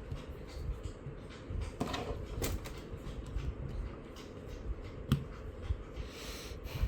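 Irregular light knocks and clicks of things being handled, with one sharper knock about five seconds in, over a steady low hum.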